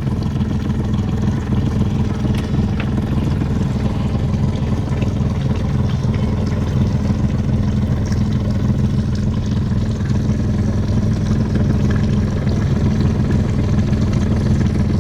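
Boat engine running steadily, a constant low drone with no change in speed.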